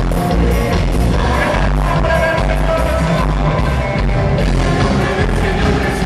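Loud live praise-band music played through a PA system, with singing over a steady drum beat and heavy bass.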